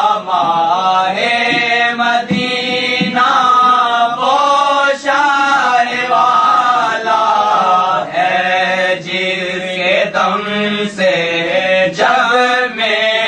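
A man's voice chanting in long, melodic, sung phrases that glide in pitch, with brief breaks between phrases.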